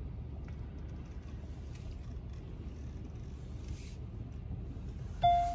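Low steady rumble of a car rolling slowly, heard from inside the cabin. Near the end, a single short, loud beep.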